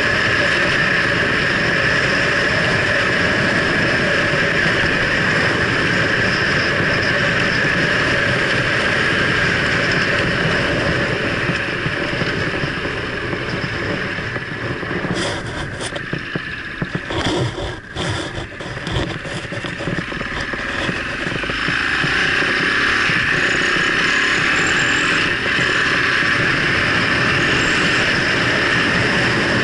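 Husaberg enduro motorcycle engine running under way on a rough gravel track, heard from a camera mounted on the bike. About halfway through the engine note drops for several seconds, with scattered knocks, then comes back up to a steady run.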